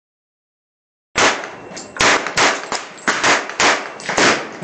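Gunshots on a shooting range: a rapid, irregular string of shots, about two or three a second, starting about a second in, each with a short ringing tail.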